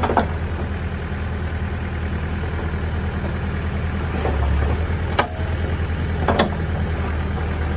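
Backhoe engine idling steadily with an even low pulse. A couple of brief sharp sounds come over it about five and six and a half seconds in.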